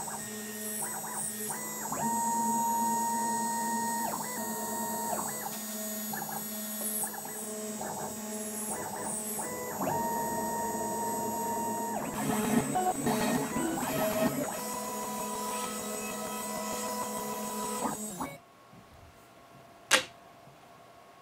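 CNC router drilling a row of holes: its stepper motors whine in steady tones that change pitch every second or so as the machine moves between holes, over a steady low hum. Near the end the machine falls quiet, followed by a single sharp click.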